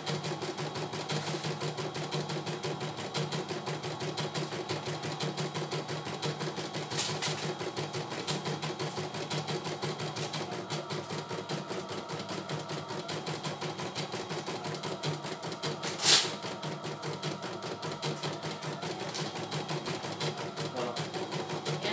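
CNY E900 computerised embroidery machine stitching a design in its hoop, with a fast, steady needle rhythm. A single sharp click comes about two-thirds of the way through.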